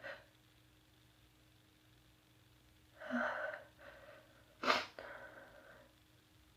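A person sneezing once: a drawn-in, voiced build-up about three seconds in, then a sharp, loud sneeze a little before five seconds that trails off over the next second.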